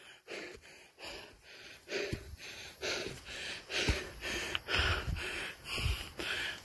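A hiker panting hard from the exertion of climbing a steep trail, about two short breaths a second, with a few dull footfalls.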